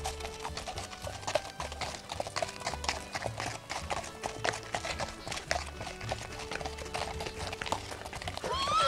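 Horses' hooves clip-clopping on a hard dirt path as several ridden horses walk past one after another. A horse whinnies near the end.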